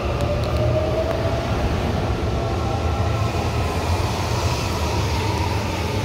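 CBTU Série 1000 electric multiple unit accelerating away from the platform: a whine that rises in pitch over about the first second and then levels off, over a steady rumble of the train running on the rails.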